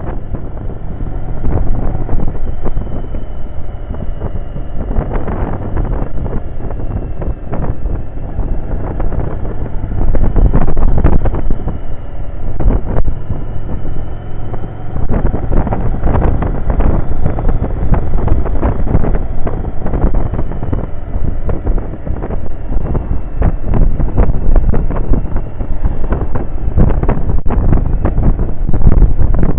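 Loud wind buffeting the microphone of a camera on a moving motorcycle, swelling and dropping in gusts, over the low running of the Yamaha XV750's air-cooled V-twin engine at road speed.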